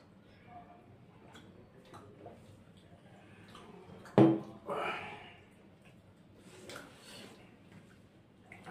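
Quiet eating at a table: faint clicks of fingers mixing rice on plates, and a single sharp knock about four seconds in as a steel tumbler is set down on the wooden table. Brief breathy vocal sounds follow.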